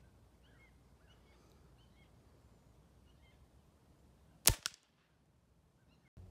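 .177 Benjamin Trail NP Mark II nitro-piston air pistol firing a single shot about four and a half seconds in: one sharp crack followed a split second later by a second, weaker one.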